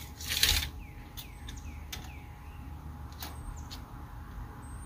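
Steel tape measure being run out along a trailer frame: a short scraping slide about half a second in, then a few light clicks of the blade and hook against the metal.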